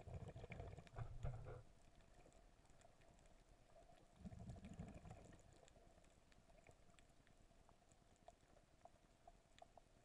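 Muffled underwater sound picked up by a camera held underwater while snorkelling: two short, low muffled bursts, one right at the start and another about four seconds in, over a faint steady hum and scattered faint clicks.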